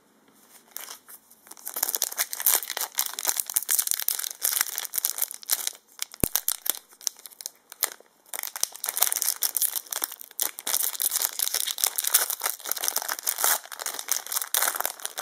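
Foil wrapper of a trading card booster pack crinkling and tearing as it is opened and handled, in two long stretches with a pause of about two seconds in the middle.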